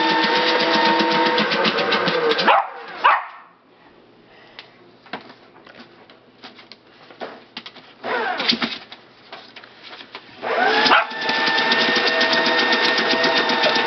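Aurora paper shredder running, its motor and cutters grinding paper with a rapid, dense chatter. It winds down to a stop about three seconds in, leaving only scattered light clicks, then starts again with a rising whine about eleven seconds in and runs on.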